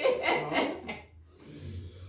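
A person's voice for about the first second, then quieter, leaving a faint low hum.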